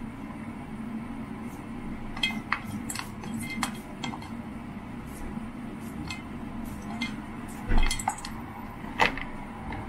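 Green beans being sliced by hand over a stainless steel mixing bowl: scattered light clicks and clinks as the slivers and the knife or fingers touch the metal, with a louder knock about eight seconds in and another a second later. A steady low hum runs underneath.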